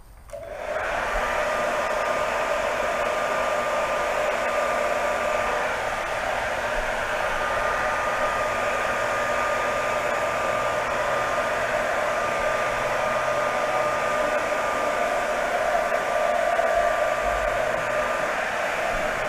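Handheld hair dryer switched on about half a second in and then running steadily, heating vinyl wrap onto a gun stock: a rush of blown air with a thin steady whine.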